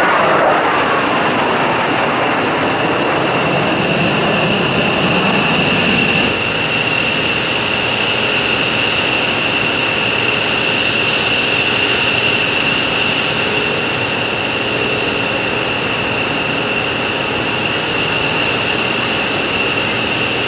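Jet noise from McDonnell Douglas F-4 Phantoms flying overhead, with a falling pitch as one passes in the first second. About six seconds in the sound drops suddenly, then runs on as a steady jet rumble with a steady high whine over it.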